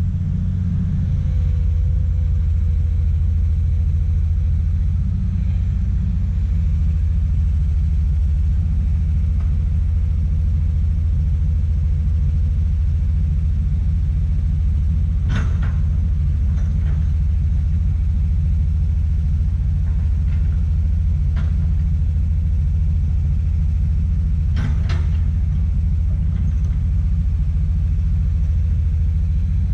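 Komatsu PC200 excavator's diesel engine running with a steady low rumble, with a few sharp knocks, two about halfway through and two more near the end.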